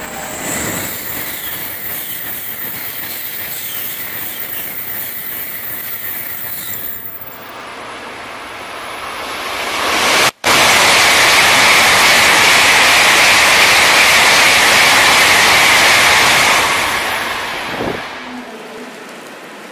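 Shinkansen bullet trains passing at high speed, a steady rushing noise of wheels and air. About ten seconds in, after a brief drop-out, a much louder rush from a train going past close by sets in for about six seconds, then fades away.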